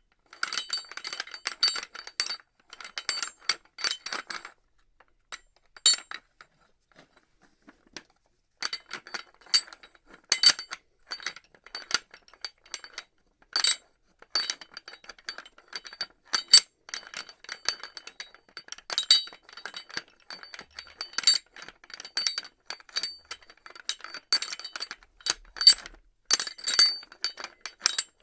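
Metal pulley clattering: irregular runs of sharp metallic clinks and rattles with a bright ringing note. The clatter stops for about two seconds early on, then resumes.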